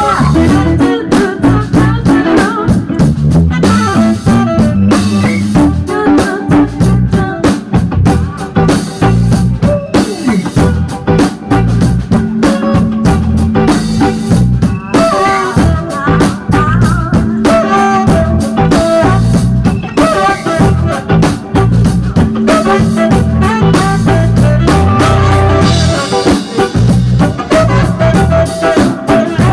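Live band playing an instrumental number: electric guitar, electric bass and drum kit, loud and steady throughout.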